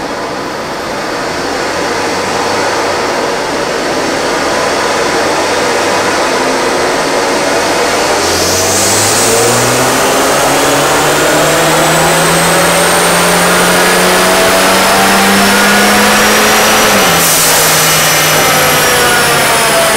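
Hyundai Veloster Turbo's 1.6-litre turbocharged four-cylinder making a dyno pull on the rollers, in a baseline run without nitrous: a loud steady roar for the first eight seconds, then the engine note climbs, dips briefly near seventeen seconds and climbs again. A high whine rises above it, with a hiss about eight seconds in and again at the dip.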